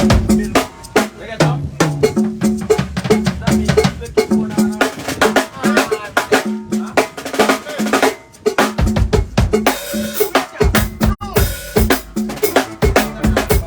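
Loud drum-heavy music with a fast, steady beat and a repeating bass note.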